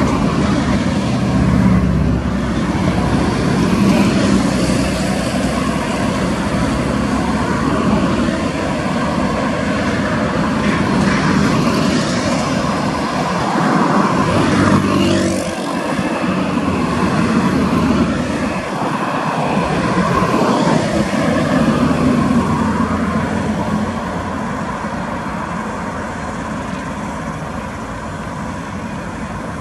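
DFB-class diesel-electric locomotive engine running as the locomotive moves slowly along the track, a steady low diesel drone that eases off somewhat near the end.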